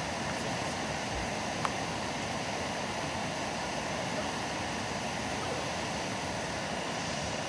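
Camping gas stove burning on high flame with a steady hiss, heating a pot of water; one faint click about a second and a half in.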